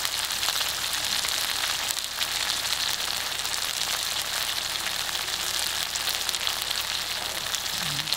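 Egg curry sizzling in the pan: a steady hiss with fine crackles.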